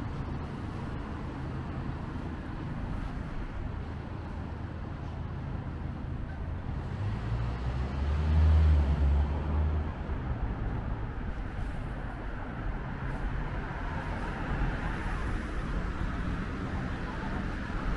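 City street ambience with light road traffic. A low rumble swells for about two seconds around eight seconds in, then fades.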